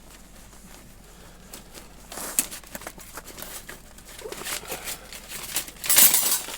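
Thin titanium fire-pit plates being handled: light clicks and scrapes, with a louder metallic clatter near the end.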